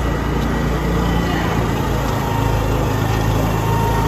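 A small engine running steadily with an even low hum.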